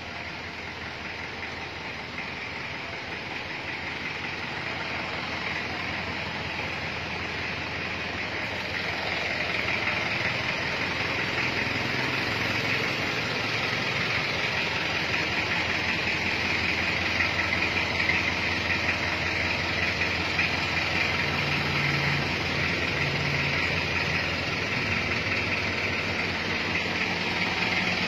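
Isuzu Panther 2.3 diesel engine of a mini tourist train idling steadily, growing louder over the first ten seconds or so and then holding level.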